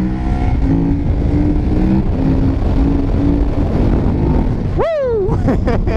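KTM 1190 Adventure's V-twin, fitted with a full aftermarket exhaust, running hard at road speed at a fairly steady pitch under a dense rush of wind and road noise.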